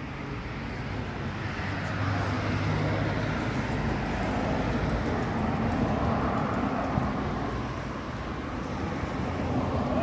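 A motor vehicle driving past close by, its engine and tyre noise swelling over the first two seconds and staying loud. It eases briefly near the end, then rises again.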